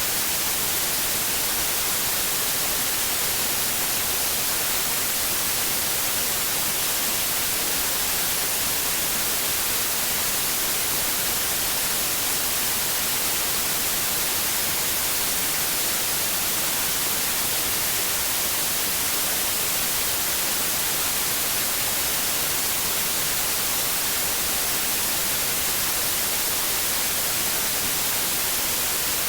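Steady white noise: an even, unchanging hiss, strongest in the high frequencies, played as a sleep aid for babies.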